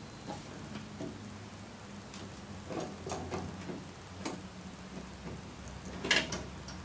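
Scattered light clicks and metallic taps of a ratchet and socket being worked onto a nut up under a car fender, over a faint steady low hum.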